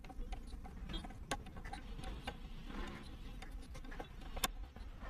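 Faint, irregular clicks of a scooter's rear drum brake cable adjuster nuts being turned by hand to tighten the brake cables evenly, with a few sharper clicks spread through.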